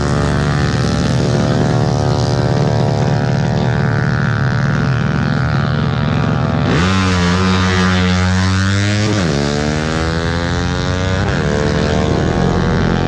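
Multi-tone telolet horns sounding loud and sustained, as several held tones at once. About seven seconds in the chord switches to new, lower notes, then the pitch drops at around nine seconds and bends again near eleven.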